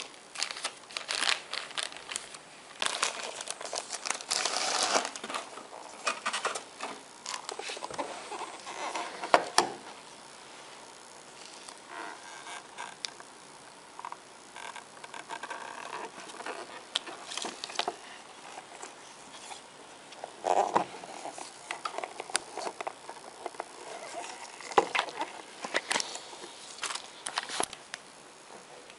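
Plastic packaging bags crinkling and rustling as parts are unwrapped and handled, with scattered light clicks and knocks. It is busiest over the first ten seconds, then comes only now and then.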